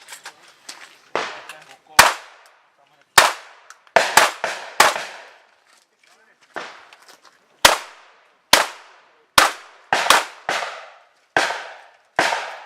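Shotgun fired about a dozen times in a run of practical-shooting stage fire, the shots coming at uneven intervals, some in quick pairs and some after pauses of a second or more.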